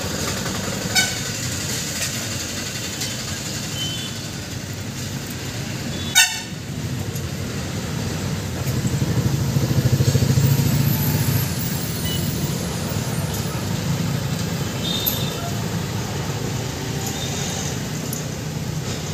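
Road traffic going by: a steady motor-vehicle rumble, with a heavier vehicle swelling past from about nine to eleven seconds in. A sharp click about six seconds in.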